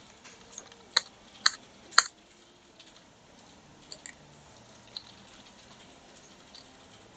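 Clicks from a computer keyboard and mouse: three sharp clicks about half a second apart about a second in, then a few fainter clicks later.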